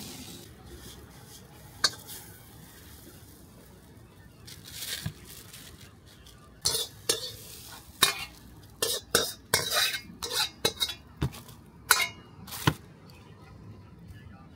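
Metal ladle scraping and clanking against a wok as fried noodles are scooped out into a takeaway tray. It comes in a quick run of sharp strokes about halfway through, lasting some six seconds.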